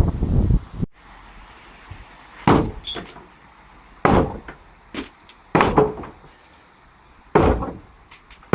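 A loud rough clatter that stops sharply about half a second in. After it come five heavy blows struck by hand on wooden floor framing, spaced unevenly about one to two seconds apart.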